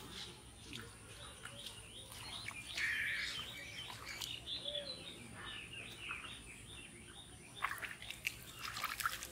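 Birds chirping in short repeated calls, with a few sharp splashes of bare feet stepping in shallow muddy water near the end.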